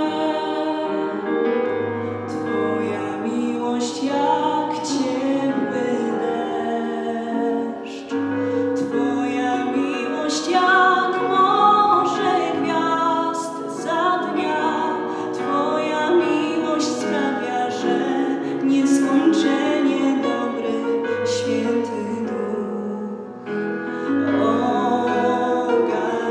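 A young woman singing a song in Polish into a microphone, with sustained instrumental accompaniment underneath.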